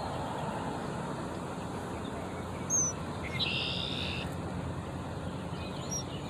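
Wild birds calling: a few short high chirps and a buzzy call about a second long near the middle, over a steady low background noise.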